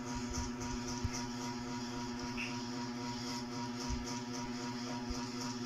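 A steady motor hum holding one even pitch, with a few faint soft thumps.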